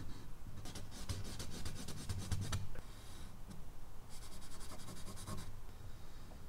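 Charcoal scratching across medium-surface drawing paper in quick back-and-forth hatching strokes. There are two runs of strokes: a longer one starting about half a second in, and a shorter one past the middle.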